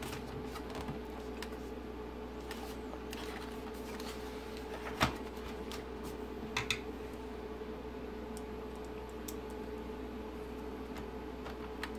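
Quiet handling of a car instrument cluster on a desk over a steady faint hum: one sharp plastic knock about five seconds in as the cluster is set down face-down, then two lighter clicks and a few faint ticks.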